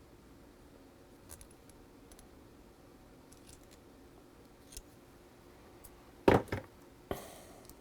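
Pliers crimping the metal shield of a joystick cable connector: a few faint ticks, then a loud sharp double snap about six seconds in and a second snap near the end that trails off briefly.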